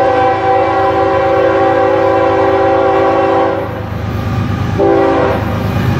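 Diesel freight locomotive's multi-note air horn: a long blast that cuts off about three and a half seconds in, then a short blast about five seconds in, over the low rumble of the approaching train.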